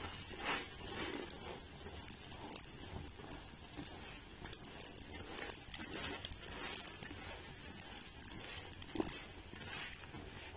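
Faint, steady sizzle of a beaten egg frying in oil under a paratha in a nonstick pan, with soft scraping and pressing from a silicone spatula and a light knock about nine seconds in.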